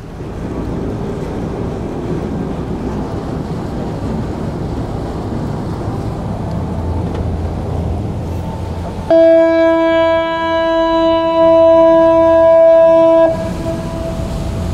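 HADAG harbour ferry's horn sounding one long blast of about four seconds, a steady single-pitched tone that cuts off abruptly. It is sounded as a salute and comes over a steady rumble.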